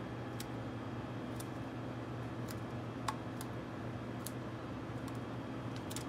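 A handful of faint, short clicks from a laptop hard drive and its ribbon-cable connector being handled and fitted together by hand, over a steady low hum.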